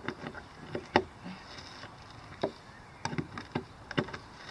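Irregular clicks and knocks of a ratchet and socket working at a stubborn bolt, with a faint insect buzz behind them.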